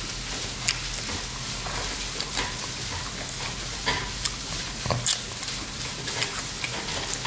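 Steady sizzling crackle of rice frying in a pan, with scattered soft clicks from chewing and from meat being pulled off a fried chicken drumstick.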